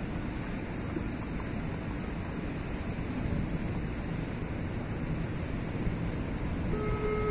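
Wind blowing on the microphone over open harbour water: a steady rushing noise with water lapping. A short steady tone sounds near the end.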